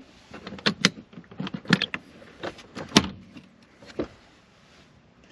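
An irregular series of sharp clicks and knocks, the loudest about three seconds in, stopping about four seconds in.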